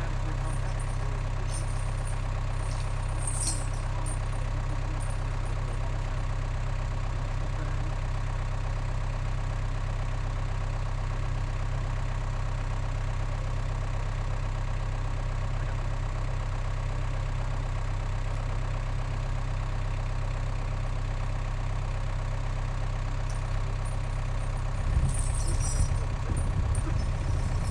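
An engine idling steadily. Near the end, louder uneven low rumbling joins in.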